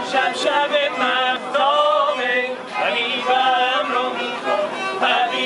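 A Persian song sung by several voices together, with a kamancheh (bowed spike fiddle) playing along.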